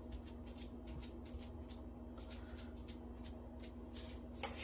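Light, irregular crinkling and crackling of bubble wrap and thin disposable plastic gloves as hands press the bubble wrap down onto soft soap, thinning out about halfway through, with one sharper click near the end. A faint steady hum runs underneath.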